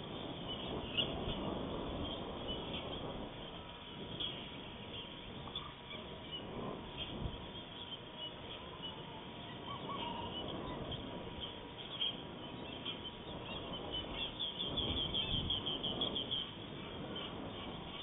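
Wild birds calling: many short, high chirps scattered through, with a quick run of calls about three-quarters of the way in, over a low noisy background hiss and a faint steady whine.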